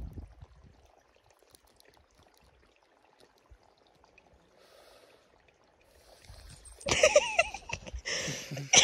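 Several seconds of near quiet, then, about seven seconds in, a man's loud, breathy exhaling and vocal sounds with a wavering pitch, after a drag on a joint.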